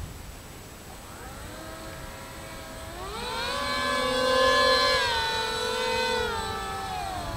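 Three brushless electric motors and propellers on a foam RC Su-30 model jet whining together in a siren-like wail. The pitch rises about a second in and again more steeply around three seconds, holds at its loudest, then glides down near the end.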